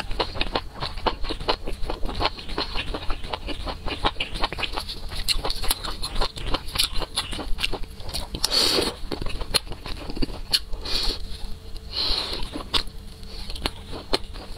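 Close-miked wet chewing of spicy skewered food in red chili sauce: a fast, continuous run of moist mouth and teeth clicks, with two longer wet sounds about halfway and about three-quarters through as food is bitten and sucked off a wooden skewer.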